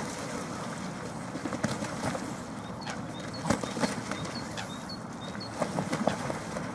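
Mute swan and Canada geese fighting on the water: splashing and wing-flapping, heard as a string of short slaps and splashes over a steady rushing noise, with a few faint high chirps.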